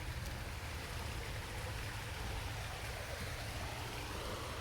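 Steady rush of a fast-flowing creek.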